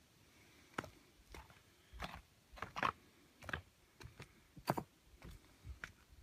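Footsteps on flat bluestone slab paving: shoes clicking and scuffing on the stones at a walking pace, about two steps a second.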